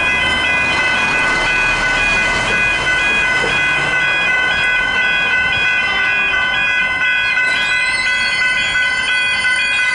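Level crossing warning bells ringing: steady electronic tones with a fast alternating ding pattern. A second set of higher tones joins about three-quarters of the way through.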